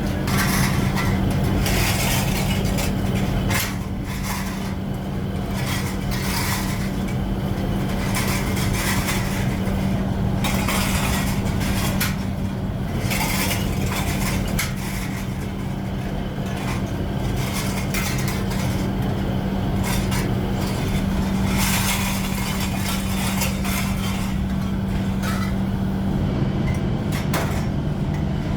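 A workshop machine running with a steady hum, under irregular clattering, knocking and scraping of metal kettle parts.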